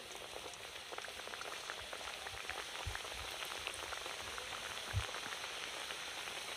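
Singaras (cauliflower-filled samosas) deep-frying in oil in a kadai: a steady sizzle with fine crackles from the bubbling oil. A couple of soft low thumps come about three seconds in and again near five seconds.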